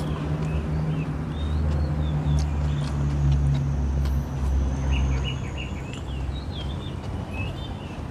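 Small birds chirping over a low, steady motor rumble that is loudest in the middle and fades out after about five seconds.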